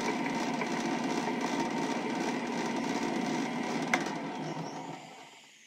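Metal lathe running while a stepped drill bit, used as a tapered reamer, cuts into the bore of an aluminum hot-end heatsink: a steady machining and cutting noise with a single sharp click about four seconds in. The sound dies away near the end.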